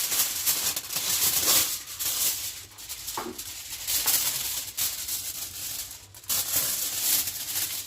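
Aluminium foil crinkling and rustling as it is folded and wrapped around a potato, in uneven spells with a short pause about six seconds in.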